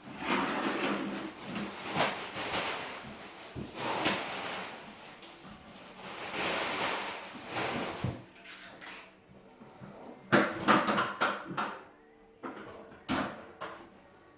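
Scraping and sliding noises in long swells, then a quick run of sharp knocks and clicks about ten seconds in.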